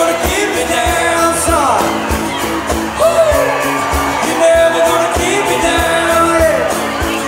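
Live country band performing: lead vocals with sliding, gliding notes over strummed acoustic guitars and a steady kick-drum beat.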